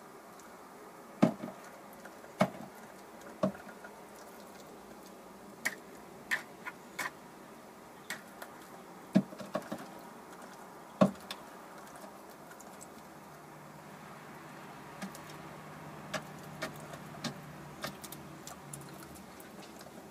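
Irregular sharp knocks and ticks, the loudest about a second in, at about two and a half seconds, and near nine and eleven seconds. A faint low hum comes in during the last third.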